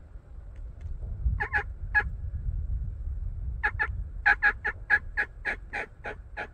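Turkey yelping: a few separate yelps, then from about the middle a steady run of about ten yelps, roughly three a second. A low rumble sits under the first half.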